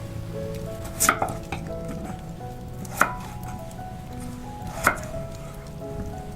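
A knife chopping on a cutting board: a few separate sharp strokes about two seconds apart, over soft background music.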